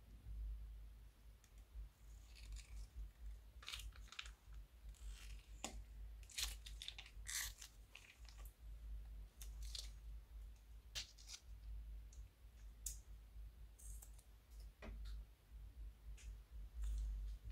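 Plastic piping bags crinkling and crackling as they are handled and squeezed, giving scattered irregular clicks, over a faint steady low hum.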